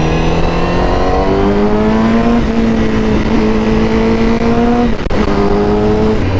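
Honda CBR1000RR-R Fireblade SP's inline-four through its Akrapovič exhaust, accelerating hard. The revs climb, drop back at a quick upshift about two and a half seconds in, climb again, and drop at a second upshift about five seconds in.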